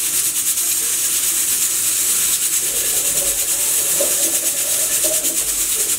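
Stovetop pressure cooker venting steam: a loud, steady high hiss with a rapid, even pulsing as the pressure weight lets steam escape, the pot at full pressure while beef cooks inside.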